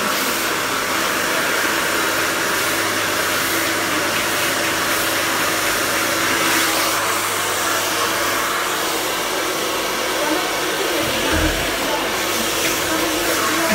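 Handheld hair dryer running steadily while blow-drying freshly cut hair: a continuous rush of air over a low motor hum, with a brief low bump near the end.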